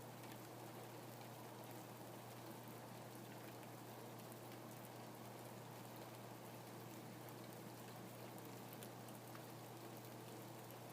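Faint, steady rain, with many small drop ticks scattered through an even hiss.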